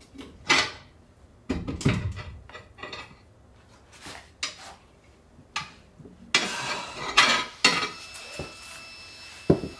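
Steel tyre levers knocking and scraping against a truck wheel rim as a tyre is prised off by hand: irregular metallic clanks, with a stretch of ringing clangs about six to eight seconds in.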